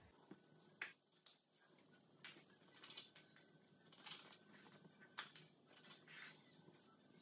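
Faint, short scratchy rustles and light taps, about half a dozen spread out, from hand-work spreading paint along a canvas's edges over a plastic drop cloth.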